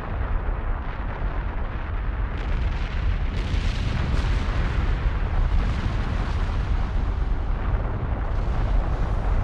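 Volcanic eruption: a continuous deep rumble with a rushing noise above it and a few sharp cracks.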